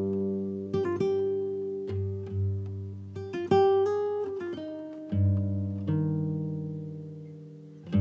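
Background music: an acoustic guitar playing plucked notes and chords, each one ringing and fading before the next.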